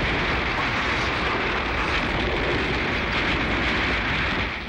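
Sound effect of a jet of vapour venting from cracked ground: a steady rushing hiss with a low rumble underneath, fading away near the end.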